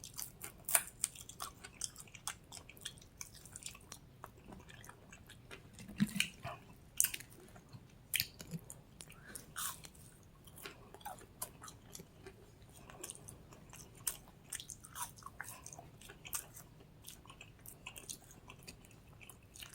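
A person chewing food close to the microphone: irregular soft mouth clicks and smacks, with a few louder bites around six to eight seconds in.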